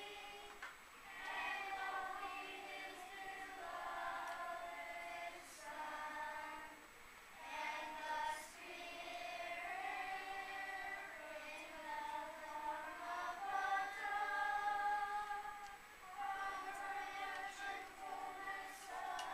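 Children's choir singing together, in phrases of held notes with short breaks between them.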